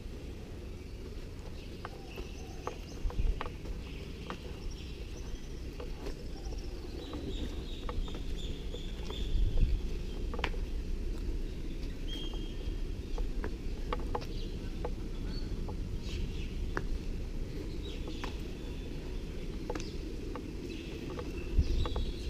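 Outdoor ambience with faint bird calls, short high whistles and chirps that come and go, over a steady low rumble and scattered light clicks.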